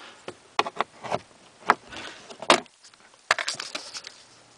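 Sharp plastic clicks and rattling as a plastic switch is pried and popped loose from a car's dash panel under the glove box: a handful of separate clicks, then a quicker clatter about three seconds in.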